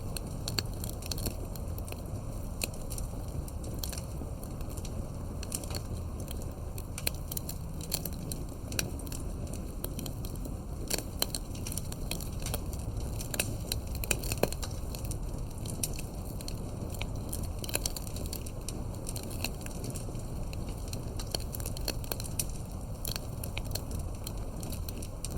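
Campfire burning, wood crackling and popping in irregular sharp snaps over a low steady rumble of flame.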